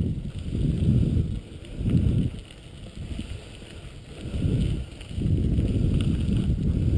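Wind buffeting the microphone in repeated surges, over the low rumble of the mushing rig's wheels rolling on a gravel road.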